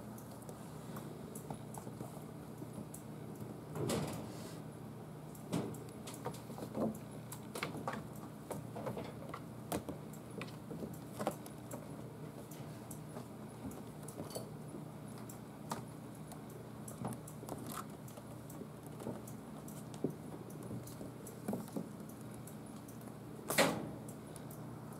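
Six-week-old kittens playing: scattered, irregular light taps, knocks and scuffles of paws, small toy balls and the carpeted cat tree on a wooden floor, over a steady low room hum. There is a louder thump about four seconds in and another near the end.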